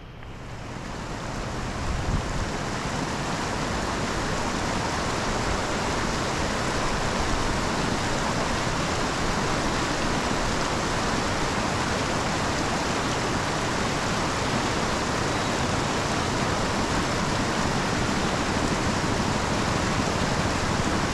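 Water rushing steadily, swelling over the first couple of seconds and then holding level.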